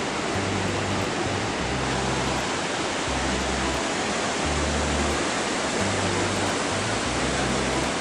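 Steady rushing roar of the Petrohué River falls, whitewater pouring over rock, with the low notes of background music under it.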